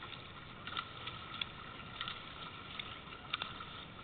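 Choppy sea water lapping and splashing against a surfski hull, with a few short, irregular slaps of water.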